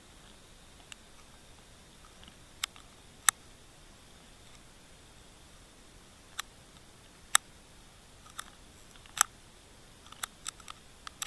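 Sharp, irregular clicks and snaps picked up underwater, a few loud single ones and a quicker run of them near the end, over a steady faint hiss.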